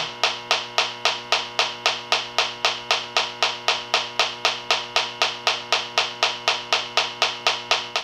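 H10 electronic refrigerant leak detector ticking at an even rate, about four or five clicks a second, with a steady hum underneath. The ticking never speeds up to a full alarm, so the detector finds no refrigerant leak at the evaporator coil.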